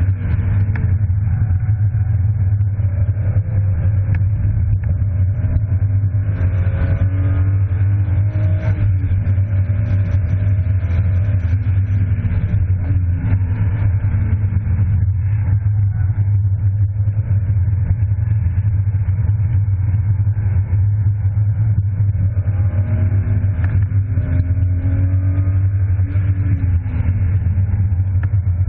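BMW E36 325i's 2.5-litre straight-six engine heard from inside the cabin under hard track driving. Its pitch climbs as it pulls through the revs and drops back at shifts or lifts, several times, over a steady low drone.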